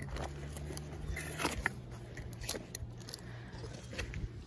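A few small clicks and gritty scrapes scattered through, over a low steady hum: a magnet-fishing magnet and the mud-caked lump stuck to it shifting on a concrete kerb.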